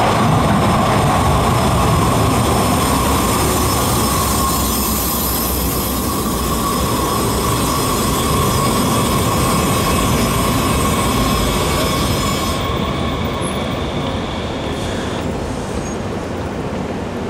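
Muni Metro light-rail train running on the rails with a steady high wheel squeal over its running noise. The highest squeal tones cut off about 13 and 15 seconds in as the noise slowly fades.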